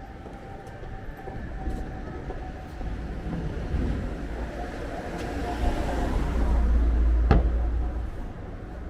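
A motor vehicle passing close by on the street: a deep rumble that builds to a peak about seven seconds in and then falls away, with one sharp click near its loudest point.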